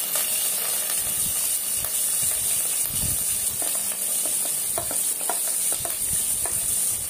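Chopped onions sizzling as they drop into hot oil with whole spices in a pot, while a wooden spatula scrapes them off a plate with a few light knocks.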